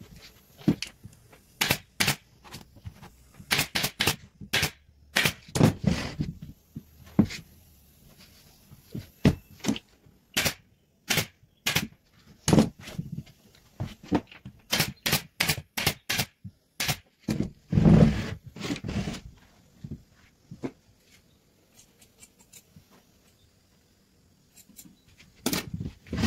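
Hand-tool work on a chair: irregular sharp taps and knocks, several close together at times, with a longer scraping stretch about six seconds in and another around eighteen seconds.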